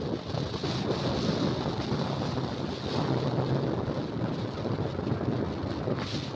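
Wind rushing and buffeting over the microphone of a moving motorcycle, with the engine running underneath as a steady low hum.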